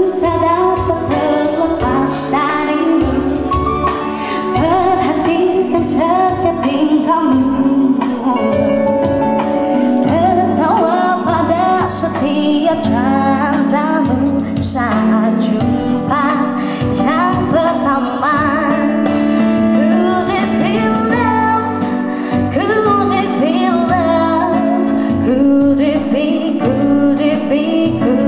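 A woman singing live into a handheld microphone, accompanied by an electronic keyboard with sustained chords and a steady bass line.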